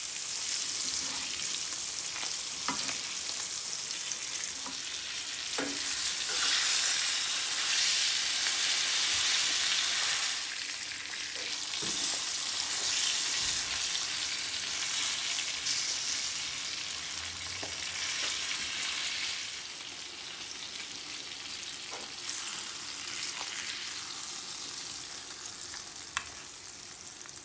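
Spice-marinated pomfret fish sizzling as they shallow-fry in oil in a frying pan, with a few light taps of a metal spatula and spoon against the pan. The sizzle is louder through the middle and softer over the last several seconds.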